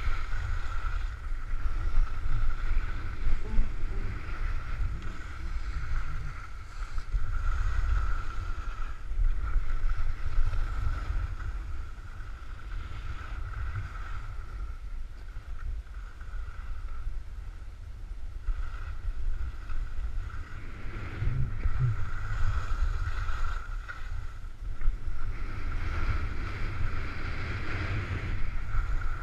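Wind buffeting the microphone of a camera carried by a skier going downhill, a rumble that rises and falls in gusts, over the steady hiss of skis sliding on snow.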